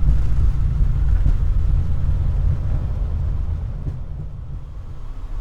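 Embraer E175 jet airliner heard from the cockpit during the landing rollout: a heavy, low rumble that eases off gradually as the aircraft slows on the runway.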